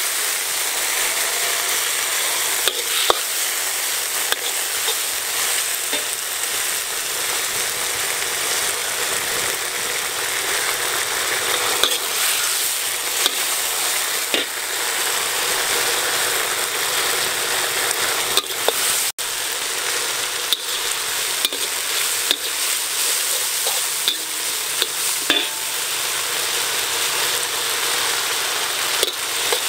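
Stir-frying in a wok: food sizzling steadily in hot oil while a metal spatula stirs and scrapes it, with occasional sharp taps of the spatula against the pan.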